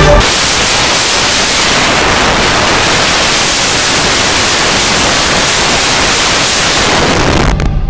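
Loud, steady hiss of white noise like TV static, with little low rumble in it. It starts suddenly and cuts off sharply near the end.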